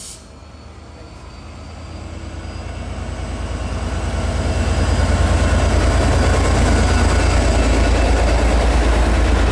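V/Line N-class diesel-electric locomotive running under power, its low pulsing engine beat growing louder over about five seconds and then holding steady as the train gets moving.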